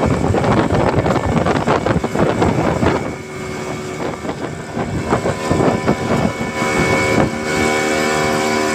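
Small fishing boat's engine running under way, mixed with wind on the microphone and water splashing against the hull. From about seven seconds in, the engine's steady hum comes through more clearly.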